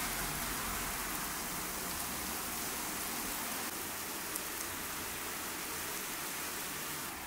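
Steady rain falling on wet paving and other hard surfaces: an even hiss with a few sharper drop ticks.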